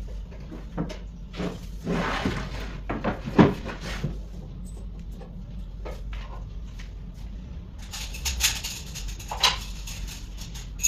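White flat-pack cabinet panels being handled and fitted together: a series of knocks and scrapes, the loudest about three and a half seconds in, then a cluster of sharper clicks and scrapes near the end.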